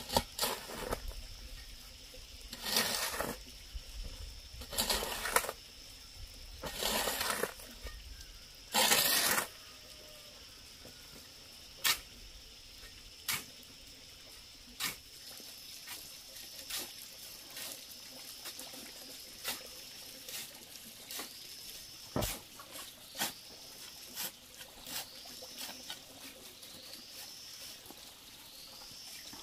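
Steel shovel scraping into and scooping sand on hard dirt ground, five strokes in the first ten seconds, followed by scattered sharp knocks and clicks of a hoe working a pile of sand.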